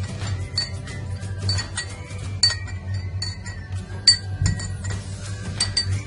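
A metal spoon stirring a drink in a glass, clinking against the glass many times at an uneven pace, with background music underneath.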